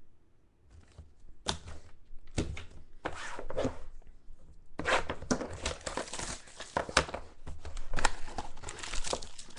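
Plastic wrapper of a pack of football trading cards being torn open and crinkled by hand: a few short rustles at first, then continuous crinkling and tearing from about halfway through.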